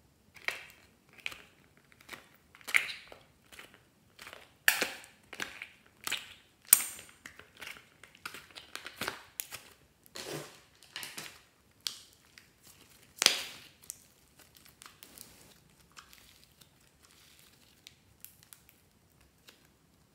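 Blue and white slime squeezed and folded by hand, giving an irregular run of wet crackles and pops. A few pops stand out louder, and the crackling thins to faint ones over the last few seconds.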